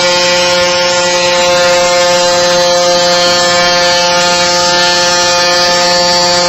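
Small two-stroke moped engine buzzing at high, steady revs, holding one unchanging pitch while the bike keeps pace at highway speed.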